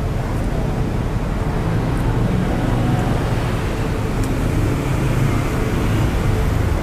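Steady street traffic noise: a constant low rumble of passing road vehicles, motorcycles among them, with a few faint clicks.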